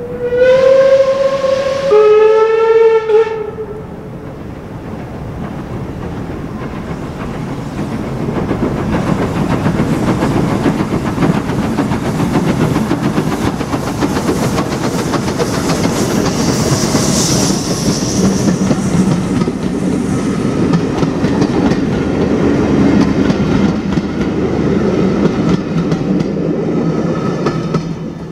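Two steam whistle blasts from double-headed Caledonian Railway steam locomotives, the second slightly lower in pitch. Then the locomotives pass with their train, exhaust and wheel clatter growing louder as they approach and dropping away near the end.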